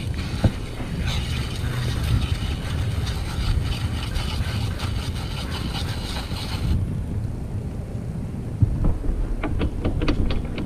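Water spraying from a WaterPort pressurized water tank's coiled-hose nozzle, rinsing a fishing reel: a steady hiss that cuts off about two-thirds through, followed by a few light clicks of handling. Wind rumbles on the microphone throughout.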